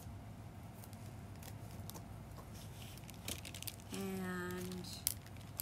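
Scissors snipping through a plastic poly mailer bag, with plastic crinkling and scattered sharp clicks of the blades. About four seconds in, a short steady hum with one held pitch stands out above the cutting.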